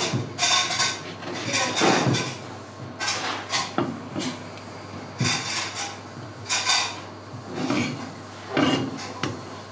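Kitchen clatter: irregular knocks and clinks of a knife and utensils against a wooden cutting board and steel counter, some with a short metallic ring.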